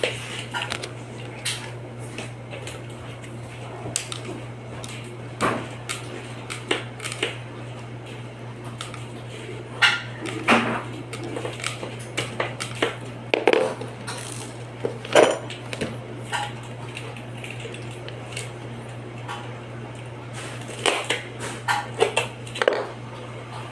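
Irregular metallic clinks, clicks and knocks of hand tools and aluminum screen-door parts being handled and worked, over a steady low hum.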